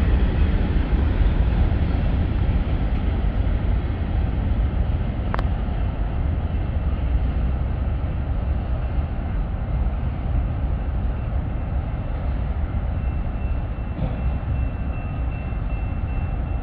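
Steel wheels of a long freight train's covered hoppers rolling on the rails, a steady rumble that slowly fades as the end of the train pulls away. A single sharp click about five seconds in.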